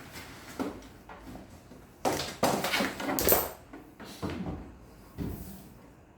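Knocks, scraping and sliding clatter of espresso-machine parts being handled and set in place, loudest in a cluster of knocks and scrapes in the middle, with a few softer single thuds before and after.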